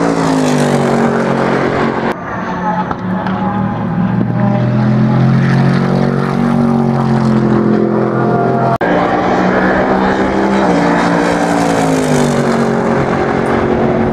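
Mercedes-Benz SLS AMG GT3's naturally aspirated 6.2-litre V8 race engine at full throttle, heard in three clips that change suddenly. The pitch falls as the car passes, then climbs slowly under a long acceleration, then rises and falls again in a second pass-by.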